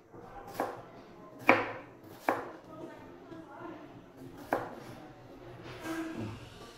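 Kitchen knife chopping a red onion on a plastic cutting board: about five separate, sharp knocks of the blade striking the board, irregularly spaced, the second the loudest.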